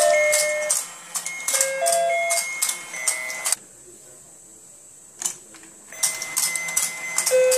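Simple electronic tune from a battery-powered rotating fish pond toy: plinking single notes over a clicking beat. It stops for about two and a half seconds midway, then starts again.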